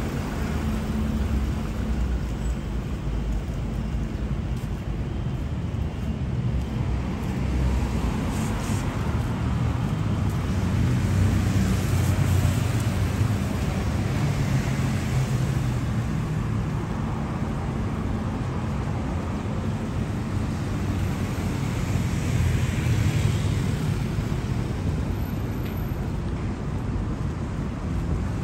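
Heavy road traffic: a steady low noise of engines and tyres that swells louder as vehicles pass, most clearly around the middle and again later on.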